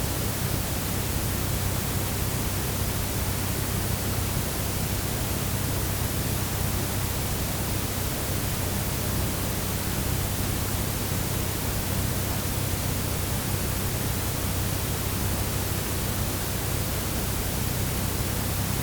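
Room tone of a quiet house: an even, unchanging hiss with a steady low hum beneath it, and no distinct events.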